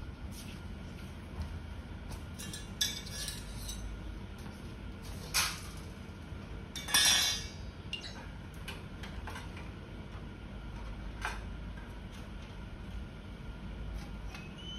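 Metal clinks and clatter from handling the sheet-metal parts of a gas stove being taken apart, with a few louder clanks, the longest about seven seconds in.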